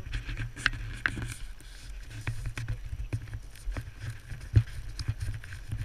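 Stationary snowmobile engine idling with a low, uneven rumble and scattered light knocks and clicks.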